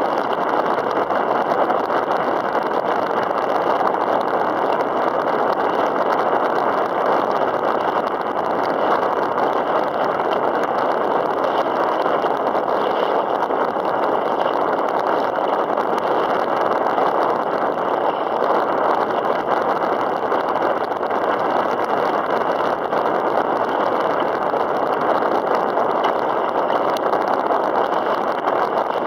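Steady, loud rushing noise of wind and choppy open water around a moving kayak, even and unbroken throughout.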